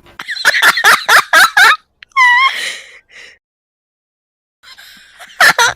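A person's voice in a rapid string of short, pitched bursts for almost two seconds, then a short wavering high call about two seconds in, and two sharp loud bursts near the end.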